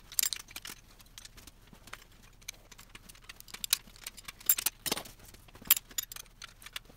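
Wrench clicking and clinking on the valve tappet adjusting screws of a Mopar flathead engine block as they are backed off: a scatter of light metallic ticks, with a few louder clinks past the middle.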